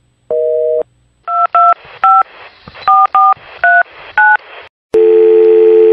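A short telephone tone beep, then seven telephone keypad touch tones as a number is dialled, a click, and a long steady telephone line tone.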